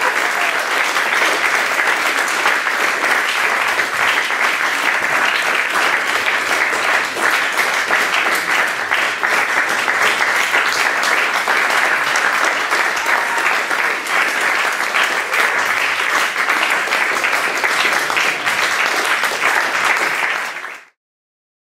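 Concert audience applauding: a steady dense clapping that fades out quickly about a second before the end.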